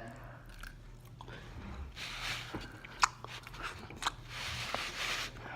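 A person biting and chewing crispy fried chicken close to the microphone, with a few crunches and a sharp click about three seconds in.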